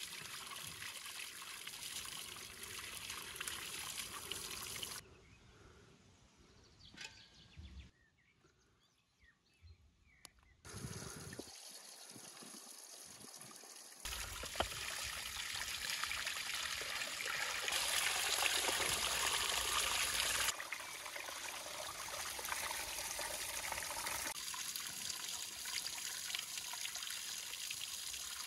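Spring water pouring from a stone spout and splashing onto rocks, with hands and then a bowl of meat being rinsed in the stream. The water drops out for a few seconds about a third of the way in and is loudest in the middle.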